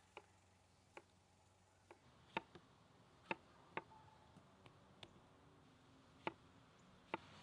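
Chef's knife slicing through tomatoes and striking a wooden cutting board: about a dozen short, sharp clicks at irregular spacing over near silence.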